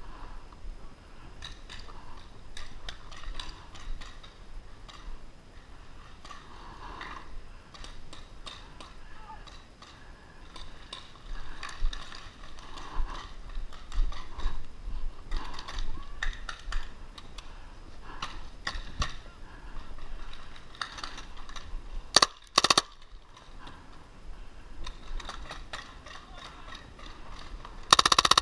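Tippmann 98 Custom paintball marker with a Response Trigger firing two short, rapid full-auto bursts, about 22 seconds in and again at the very end. Between them, scattered clicks and pops and faint voices.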